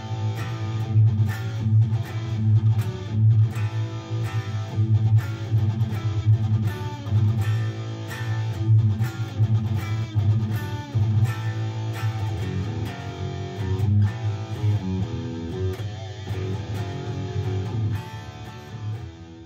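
Gibson Les Paul electric guitar playing fast rock riffs through an amplifier: rapid picked notes over a pulsing low end. The playing trails off near the end.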